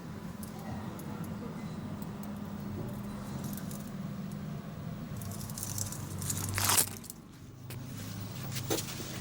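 Low steady hum from a CNC machine's stepper motors. The hum drops in pitch about five seconds in, as the axis speed changes. A louder scraping rustle comes just before seven seconds, with small clicks around it.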